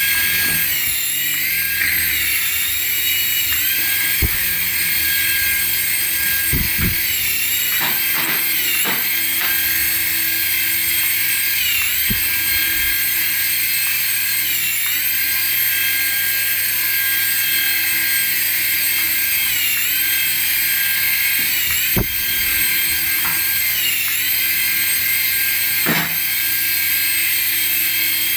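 High-pitched whine of a toy remote-control model's small electric motor running steadily, its pitch dipping briefly every few seconds as the throttle eases, with a few scattered clicks and knocks.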